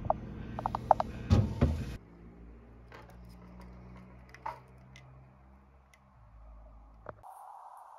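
A saucepan with a glass lid is set onto a refrigerator shelf: several quick metal-and-glass clinks, the lid briefly ringing, then a couple of heavier knocks as the pot comes down, all in the first two seconds. Afterwards there are a few faint clicks against a quiet background as a window-blind slat is pushed down.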